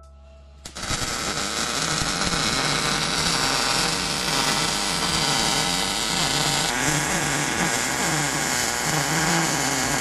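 MIG welder arc crackling and hissing steadily as a bead is laid on a steel roll-cage tube, starting under a second in.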